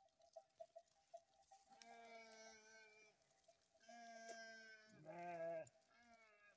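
Sheep bleating in a walking flock: two long, steady bleats, then a louder, lower-pitched one about five seconds in, and a short bleat at the end.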